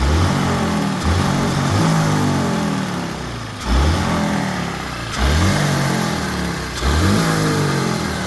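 2019 Ford Fusion's turbocharged four-cylinder EcoBoost engine revved in short bursts about six times, each a quick rise in pitch that then falls back. These are repeated throttle stabs in a test for bad motor mounts, which the owner suspects.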